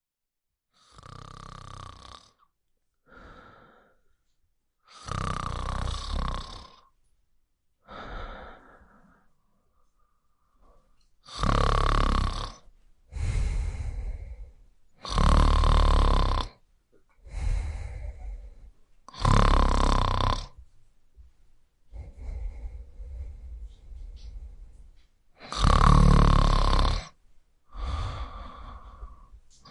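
Snoring: a run of separate snores roughly every two seconds, fairly quiet at first and much louder from about a third of the way in.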